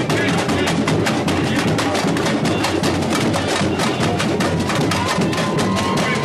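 Samba school bateria playing a fast, driving samba rhythm: deep surdo bass drums under the rapid rattle of shaken chocalho jingle frames and other small percussion.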